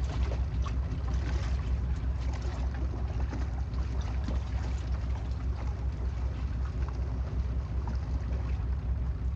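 Boat engine running steadily, a low drone under irregular crackling noise.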